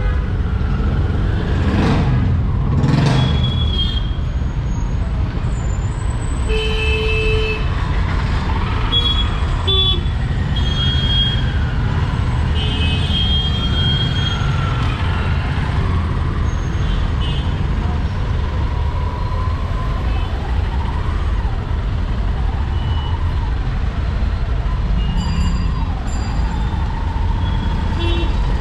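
Ride in an auto-rickshaw through city traffic: the small engine and road noise rumble steadily, and short horn beeps from surrounding vehicles sound on and off.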